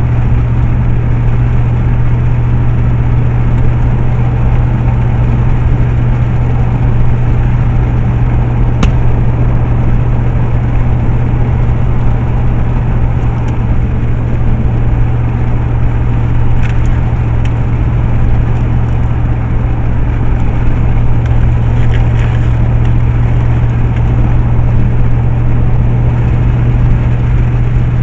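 Vehicle driving on a road, heard from inside the cab: steady engine and road noise under a constant low drone.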